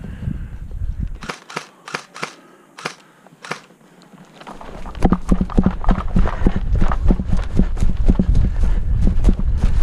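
A handful of sharp snaps of airsoft gunfire, irregularly spaced, then quick, steady footsteps from about five seconds in.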